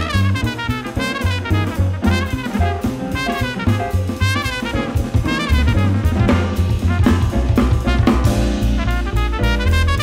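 Jazz quartet playing: trumpet, piano, double bass and drum kit.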